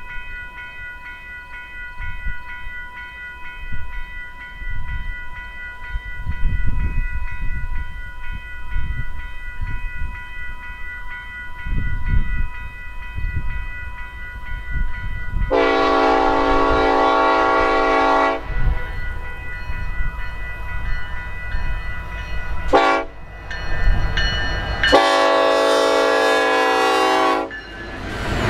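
Diesel locomotive horn on the lead EMD SD70ACe blowing a long blast, a brief one about four seconds later, then another long blast. Underneath is the steady low rumble of the approaching diesel engines, with the lead units passing close near the end.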